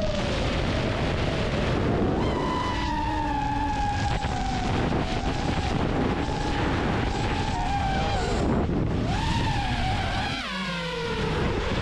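FPV quadcopter drone's motors and propellers whining, the pitch sliding up and down as the throttle changes, over wind noise. About ten seconds in the pitch drops sharply and the sound dips briefly, then climbs again near the end.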